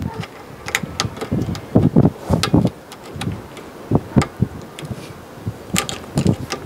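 A thin metal tool clicking and scraping against the slots of a rear brake caliper piston as it is levered round to wind the piston back into the caliper: irregular metallic taps and short scrapes.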